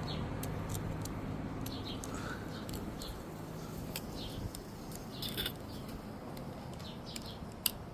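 Scattered small clicks and light scraping of hand tools working the packing out of a Burndy hydraulic crimper, over a low steady hum.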